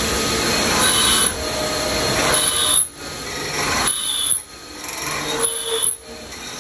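CNC machining centre cutting new wheel-stud holes in a Perodua Kancil wheel hub, the tool rasping through the metal. The cutting noise builds and breaks off sharply several times, about every second or so, with a shrill tone coming and going.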